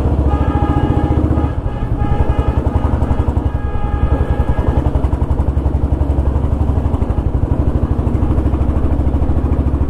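Old Royal Enfield Bullet 350's single-cylinder engine running under way, its exhaust giving a steady, even 'dug dug' thump. A steady high tone from another source sounds twice over it in the first five seconds.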